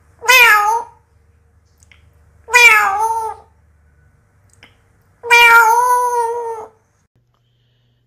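African grey parrot mimicking a cat's meow, three times, the last call the longest.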